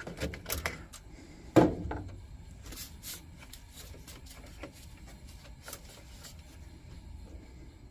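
Scattered small clicks and scrapes as old candle wax buildup is worked out of the bottom of a rusted steel folding candle lantern, with one loud knock about a second and a half in.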